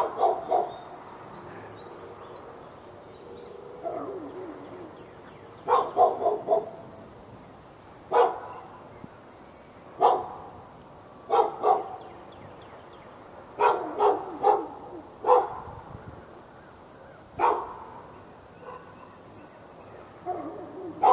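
A dog barking over and over in short clusters of one to four sharp barks, a new cluster every two seconds or so, at the dog next door.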